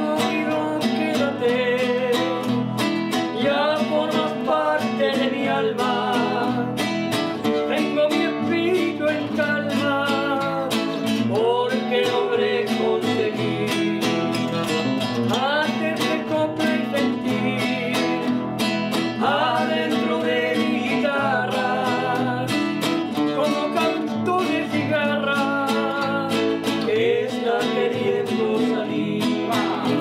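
A song sung to acoustic guitar accompaniment, the voice carrying the melody over steady guitar playing.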